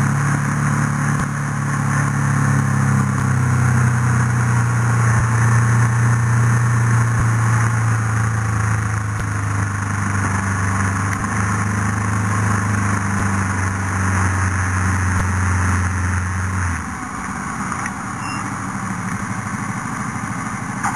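Vehicle engine running steadily at a constant low pitch while driving over a dirt and gravel track. About three-quarters of the way through, the engine note drops away to a quieter, rougher idle.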